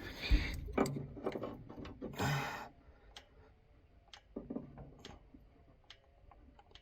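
Scattered light metallic clicks and taps of wrenches on fuel-line fittings, while air is bled from a combine's diesel fuel system after it ran dry.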